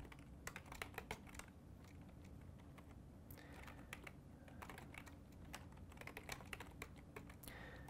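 Faint typing on a computer keyboard: quick, irregular keystrokes, with a short lull about two seconds in.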